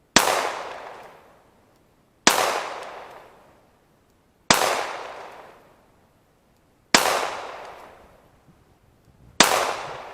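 Glock 19 9mm pistol fired five times in slow, evenly paced shots about two and a half seconds apart, each crack followed by a long fading echo.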